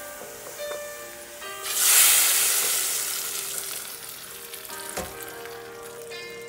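Hot oil with fried garlic and dried red chilies poured into a pot of lentils: a sudden loud sizzle about two seconds in that slowly dies away, the spitting of a tempering (tarka) hitting the dal.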